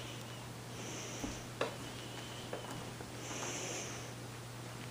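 Soft scuffling of two Bengal cats wrestling on a rug, with two breathy puffs about a second and three and a half seconds in and a couple of light knocks, over a steady low hum.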